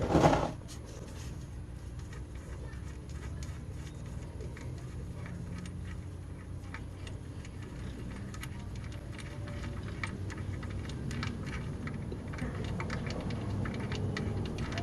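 Ratchet wrench clicking in irregular runs of ticks as it works the 13 mm oil drain bolt on a Honda CR-V's oil pan, over a low steady hum.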